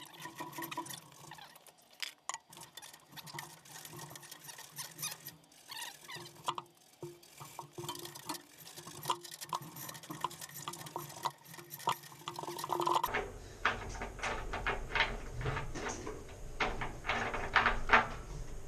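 A hand tap being turned to re-cut damaged threads in a water heater fitting: irregular metallic clicks and scraping, coming thicker and louder in the last few seconds.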